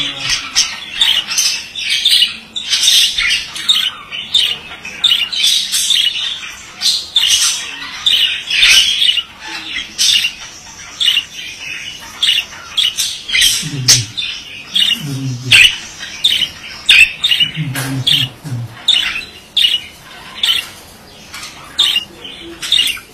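Male budgerigar (budgie) chattering and warbling: a rapid, continuous run of short high squawks and chirps, with a few lower-pitched sounds in the second half.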